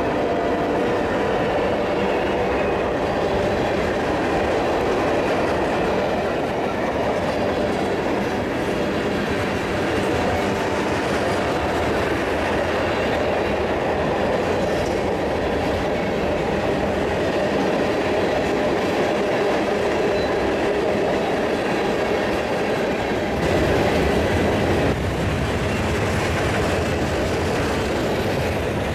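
A mixed freight train's cars rolling past on the rails: a steady rumble and clatter of steel wheels on track, briefly louder about three-quarters of the way through.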